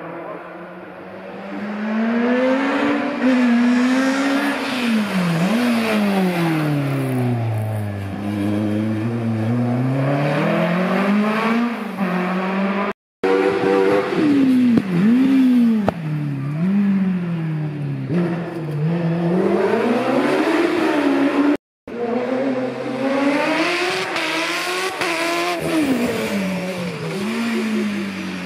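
Hillclimb competition car engines revving hard up the course, the pitch rising and falling over and over with throttle and gear changes. The sound cuts out abruptly for a split second twice.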